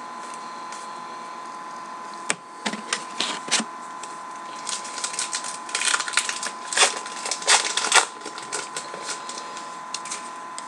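Baseball card packs being handled: wrapper crinkling and cards clicking and sliding against each other, with a sharp snap about two seconds in and the busiest crinkling a little past the middle.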